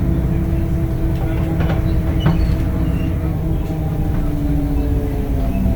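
Temsa Avenue LF 12 city bus heard from on board: its DAF diesel engine and ZF gearbox running under way, with a steady drone and a few short rattles about two seconds in. The engine note falls near the end.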